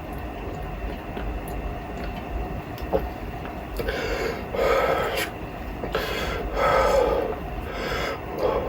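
A person chugging a litre of carbonated Perrier water: over a steady low background rumble, three loud, strained breaths come between swallows from about four seconds in.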